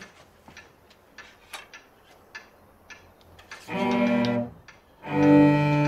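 Cello being bowed: a short held note about four seconds in, then a longer held note from about five seconds in. Before the notes there are only faint small knocks and rustles.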